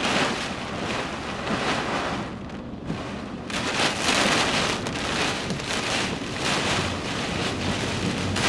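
Heavy wind-driven rain and gusting wind from a squall line, coming in surges; it eases briefly about two and a half seconds in, then picks up stronger.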